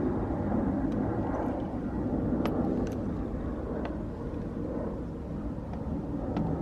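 Steady low rumble of outdoor background noise, with a few faint light clicks of metal lug nuts being handled.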